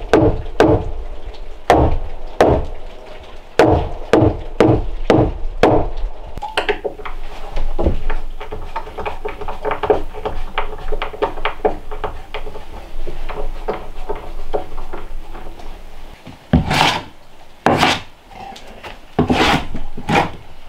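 Wooden knocks on a newly hung plank door, struck with a short log used as a mallet: a quick series of sharp thuds over the first six seconds, then lighter wooden tapping and rubbing as the door is worked in its frame.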